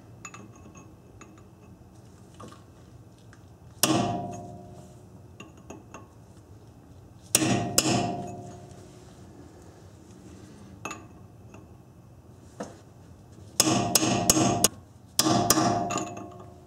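Hammer striking a cold chisel to stake the collar of a Honda Accord's front axle nut into the driveshaft slot, locking the nut. There is a single blow, then a pair, then a quick run of several blows near the end, each ringing briefly.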